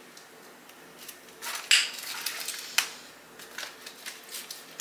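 A crusty bread roll being pulled apart, its crust crackling and the paper bag under it rustling. A burst of sharp crackles comes about a second and a half in, followed by softer scattered ones.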